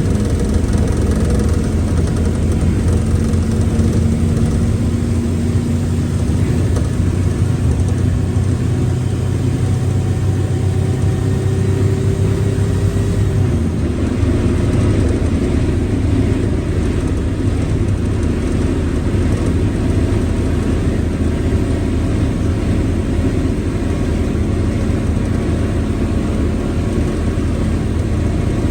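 Diesel engine of a Mercedes-Benz OF1721L BlueTec 5 bus running steadily under way, with the gearbox growling over it: faint whine tones rise and fall slowly.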